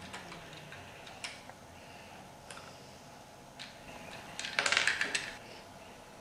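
Small plastic LEGO bricks clicking now and then as they are handled and pressed onto a model, with a short burst of clattering clicks about four and a half seconds in, like loose bricks being picked through in a pile.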